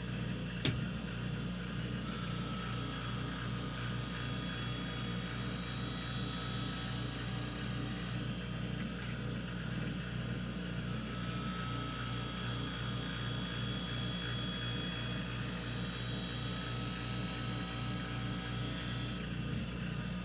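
Skate-sharpening machine humming steadily while a steel figure-skate blade is drawn along its grinding wheel in two long passes, each a light, high hiss of steel on the stone, with a short break between them. The grind is light, not hard, as the hollow is being recut.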